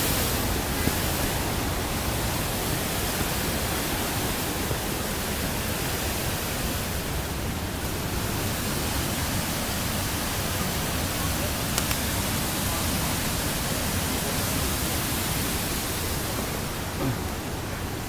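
Steady rushing of fast-flowing river water, easing off slightly near the end.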